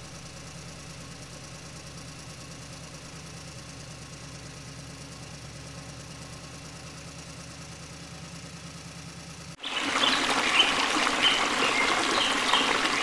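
A small engine idling steadily with a fast, even throb, cutting off abruptly about ten seconds in. Louder running, splashing water with a few short high chirps then takes over.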